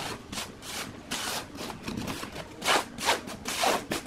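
A flat scrap of wood scraped across a pine board, sweeping sawdust off it in a run of short strokes, about two to three a second. The strongest strokes come in the second half.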